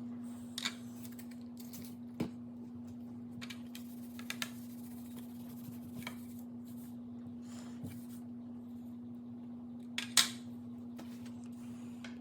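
Scattered small plastic clicks and taps as buttons are handled and pressed into a BMW E39 HVAC button panel, the loudest a double click about ten seconds in, over a steady low hum.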